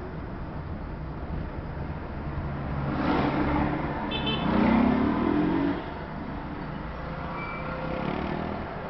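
Steady engine and road rumble heard from inside a moving car in slow town traffic. Between about three and six seconds in, a louder engine revs up and down.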